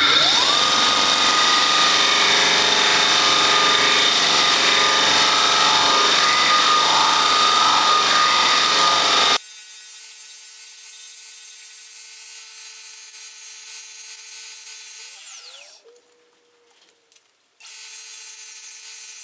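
Multitool combination belt grinder and buffer switched on, its motor spinning up in about half a second to a steady whine. It runs loudly while the polish-loaded buffing wheel works a plastic welding-helmet lens cover to remove scratches. About nine seconds in the sound drops suddenly to a much quieter steady hum, cuts out for about two seconds near the end, then the quieter hum resumes.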